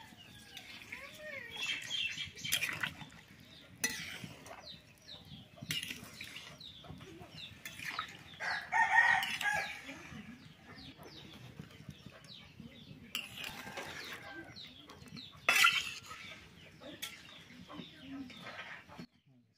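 Domestic chickens clucking, with one longer, louder call about halfway through, among scattered knocks and clatter.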